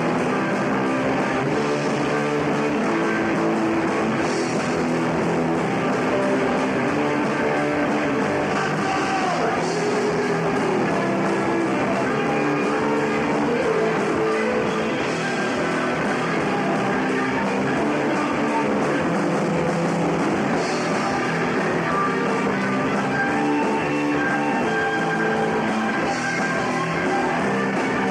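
Punk rock band playing a song live, with guitar and drum kit at a steady, full level.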